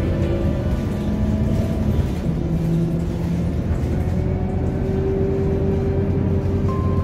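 Low, steady rumble of a moving double-decker city bus heard from inside, with background music of slow held notes over it.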